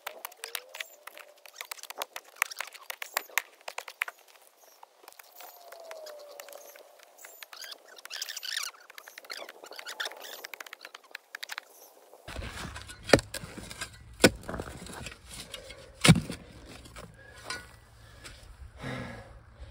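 Steel shovel digging and scraping into soil, bark and wood chips: a quick run of chops and scrapes, then a few single louder strikes about two-thirds of the way in.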